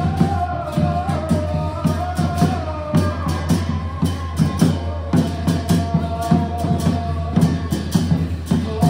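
Music with a steady drum beat under a sustained melody line that bends slowly in pitch.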